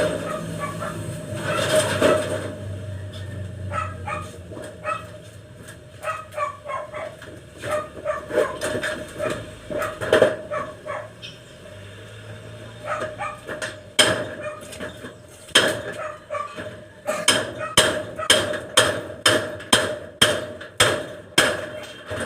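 Hammer blows on wood during carpentry work: scattered knocks at first, then a steady run of strikes at about two a second in the second half.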